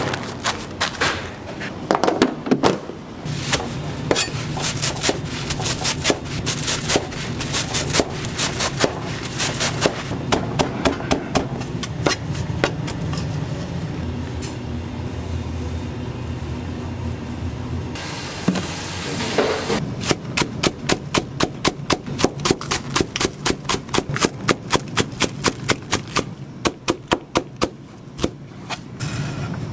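Kitchen knife chopping green onions on a plastic cutting board: rapid knocks, about four a second, over a steady low hum.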